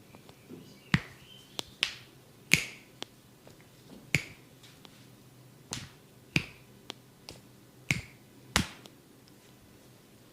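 About a dozen sharp snaps at irregular intervals from the barber's hands working the skin during a massage, typical of skin cracking.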